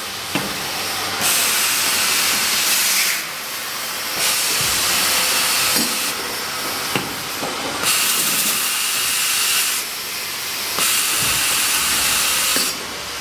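Multi-station automatic tapping machine running through its cycle: repeated bursts of loud air hiss, each one to two seconds long with short quieter gaps between, and now and then a sharp click or clunk from the pneumatic clamps and rotary indexing table.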